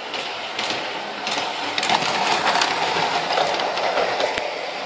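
LGB garden-scale model locomotive running along the track: a steady whirr with scattered sharp clicks of wheels over rail joints and points, growing louder about two seconds in.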